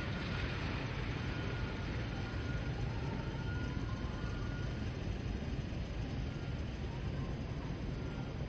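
Steady city street noise: a low rumble of traffic, with no single sound standing out.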